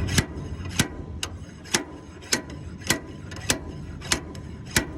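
OTC slide hammer's weight slamming against its stop about twice a second, a run of sharp metallic clanks with a short ring, pulling on the seized wheel bearing of a John Deere 24T square baler that will not come off.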